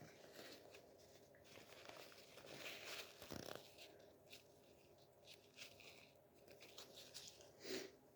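Faint rustling and soft breathy sounds from a person, with one short, sharper breath near the end.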